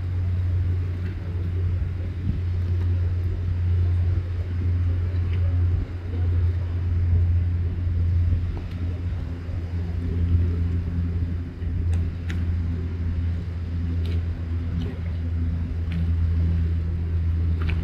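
Steady low drone of a boat engine running, with a few faint clicks in the second half.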